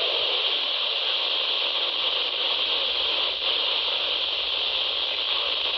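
Steady radio static hiss with no voice getting through: the broadcast warning drops out under the noise partway through a sentence.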